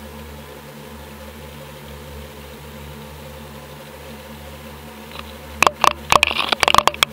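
Sound picked up by an underwater camera: a steady low hum, then from about five and a half seconds in, a rapid run of sharp knocks and scrapes as the camera housing bumps against submerged rocks.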